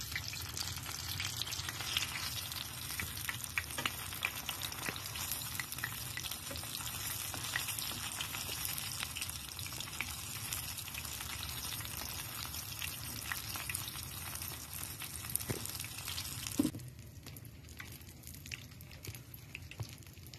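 Breaded chicken croquette deep-frying in hot oil: a steady sizzle full of crackles and pops, with a metal ladle moving in the oil. The sizzle cuts off suddenly near the end, leaving only a faint background.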